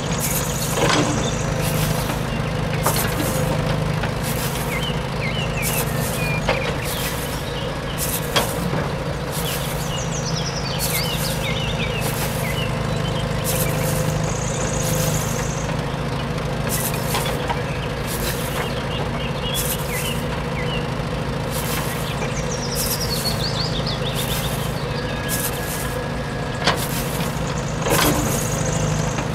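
Heavy excavator engine running steadily, with short hisses repeating about once a second.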